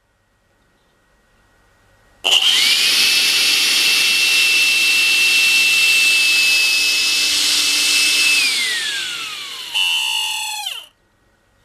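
Makita CL182FD 18 V cordless vacuum cleaner's motor fan, switched on about two seconds in. Its high whine climbs quickly and holds steady, then falls away as the motor is switched off and spins down, with a short louder burst near the end of the slowdown before it stops. This is the abnormal motor noise that the owner suspects means the motor is reaching the end of its life after two years of near-daily use.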